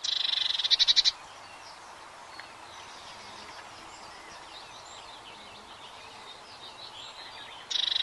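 Blue tit singing: a loud, high phrase that ends in a fast trill, lasting about a second, with fainter bird chirps in between, and the phrase starting again near the end.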